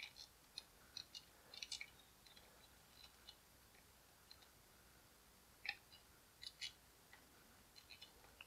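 Faint scattered small clicks and ticks of hard plastic as fingers hold and press the rear wheel of a G.I. Joe Ninja Lightning Cycle toy onto its axle, otherwise near silence.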